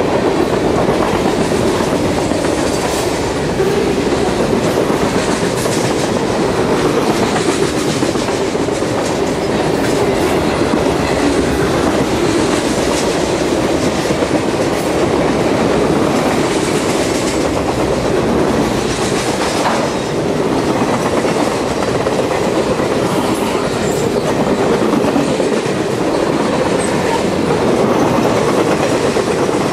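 Freight cars of a long train rolling past close by: steel wheels running on the rails, making a steady loud noise with no break.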